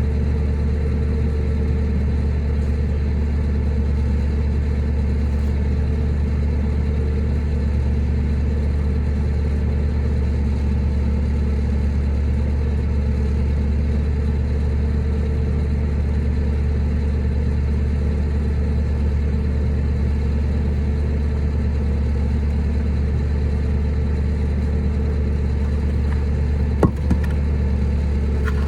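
Steady low rumble of an idling engine, unchanging in level and pitch, with one sharp knock near the end.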